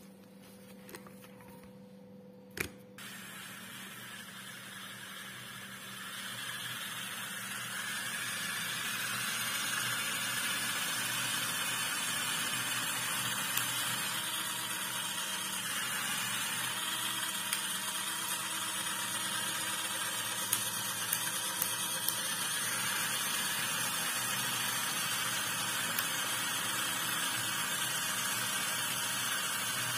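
A sharp click about two and a half seconds in. Then the steady whir of the toy tractors' small electric motors builds over the next several seconds and holds, with a few faint ticks.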